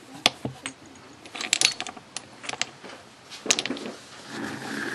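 Knapping hammerstones and stone flakes clinking and knocking against each other as they are handled and set down: irregular sharp clicks, several in quick succession about a second and a half in.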